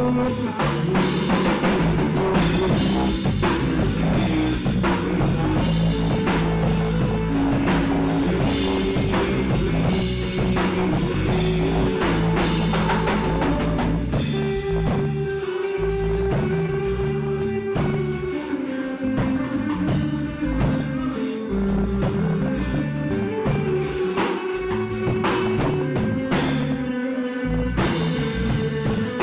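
A live rock band playing: drum kit, electric guitar and bass guitar, with held pitched notes over a steady beat.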